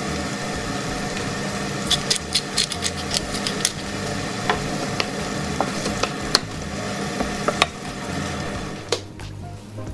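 Chopped tomatoes, peppers and onion sizzling in oil in a nonstick frying pan while a wooden spatula stirs them. A quick run of sharp taps and scrapes of the spatula against the pan comes about two seconds in, with a few more scattered taps later.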